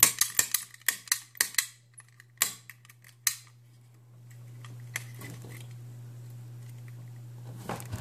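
Sparrows snap gun triggered repeatedly in a brass pin-tumbler practice lock: a quick run of sharp metallic snaps, about five a second for the first couple of seconds, then two single snaps, then it goes quieter. Each snap of the gun's needle flicks the lock's pins upward while tension is held on the plug.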